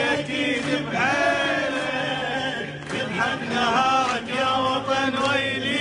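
Men's voices chanting and singing together in a rhythmic sung chant, like a crowd chant.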